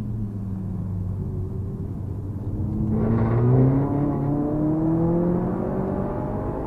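Ford Focus RS Mk1's turbocharged 2.0-litre four-cylinder engine heard from inside the cabin. It runs steadily at low revs, then about three seconds in it pulls hard under acceleration, its pitch rising steadily.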